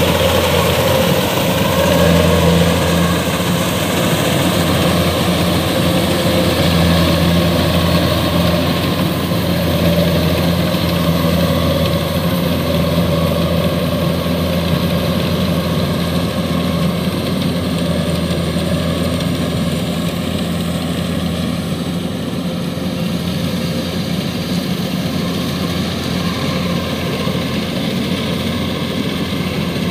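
Kubota DC-105X rice combine harvester's diesel engine running steadily with its threshing machinery while it harvests, a constant low hum. It grows slightly fainter as the machine moves away.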